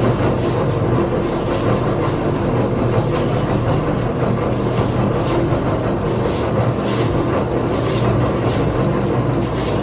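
Power tool running steadily against the wood of a skateboard deck during shaping or sanding, with faint repeated scraping strokes over its hum.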